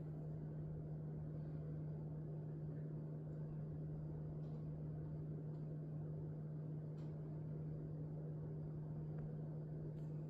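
A steady low hum on one unchanging pitch, over a faint rumbling noise, with a few faint soft clicks.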